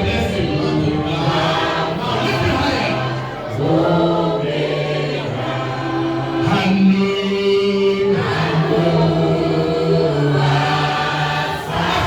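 Church choir and congregation singing a slow gospel worship song in harmony, with long held notes.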